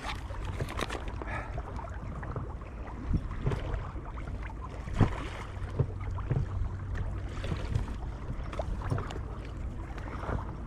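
Wind rumbling on the microphone aboard a small boat, with scattered knocks and clicks at irregular intervals.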